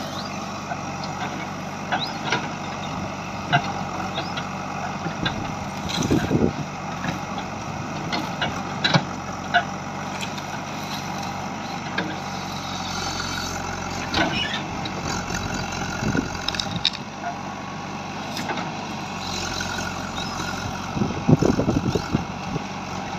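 JCB 3DX backhoe loader's diesel engine running steadily while its backhoe bucket tears out bushes. Scattered snaps and crackles of brush and branches sound over it, loudest about six seconds in and again near the end.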